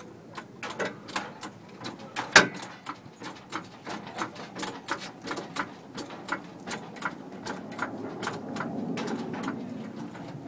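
A jack under a trailer axle being pumped with its long handle, clicking about three times a second as it raises the wheel off the ground, with one louder metallic knock about two seconds in.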